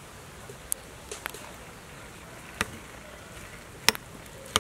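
A metal spoon clicking against a ceramic bowl while scooping and mixing soft steamed food: a handful of short sharp clicks, the loudest near the end.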